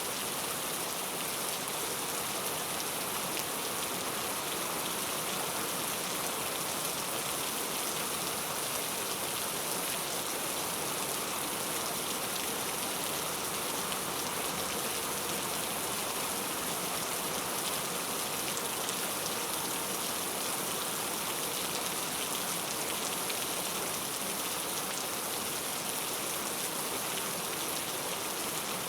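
Steady heavy rainfall: a dense, even hiss of rain falling on surfaces.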